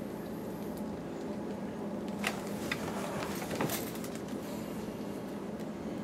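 Steady low room hum, with a few faint clicks and taps about two to four seconds in as a plastic model skull is turned in the hands.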